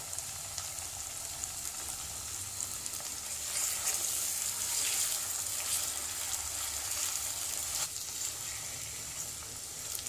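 Raw chicken pieces sizzling in hot oil with garlic-ginger and green chilli paste in a non-stick pot, stirred with a spatula that scrapes and knocks against the pan. The sizzle grows louder for a few seconds in the middle.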